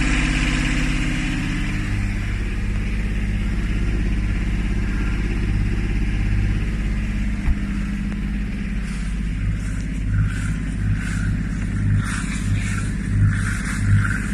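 A sailboat's small inboard engine running steadily at idle, with a single knock about seven and a half seconds in. From about nine seconds in, the wet exhaust outlet at the stern adds a pulsing splash of cooling water, about one to two spurts a second.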